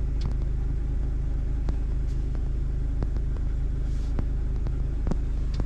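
Norwood LumberPro HD36 V2 portable sawmill's engine running steadily under load while the band saw cuts through a log, with a few faint clicks.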